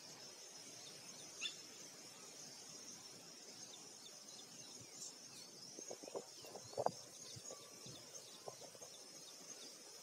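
Outdoor ambience: a steady high insect-like drone with faint short bird chirps over it. A few soft knocks come about two-thirds of the way through.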